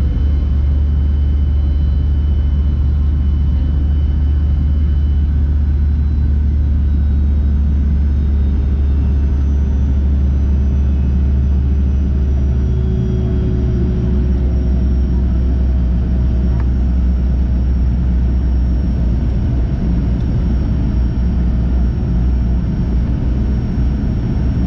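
Inside the cabin of a Fokker 100 taxiing: its rear-mounted Rolls-Royce Tay turbofan engines at low taxi power make a steady low drone, with faint high whining tones over it.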